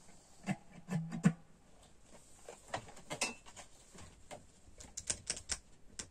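Scattered clicks and knocks of an electric guitar being handled and settled into playing position, with a couple of short string notes about a second in.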